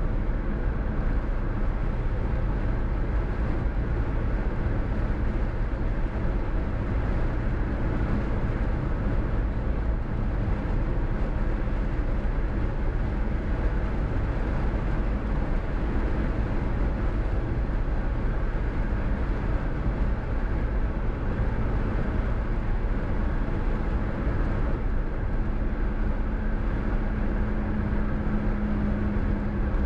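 Steady running noise of a car on a highway, engine and tyre hum, with a low steady drone that grows louder near the end.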